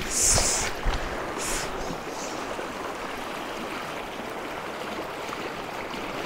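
Shallow stream running over rocks, a steady rush of water, with two brief hissing splashes in the first two seconds.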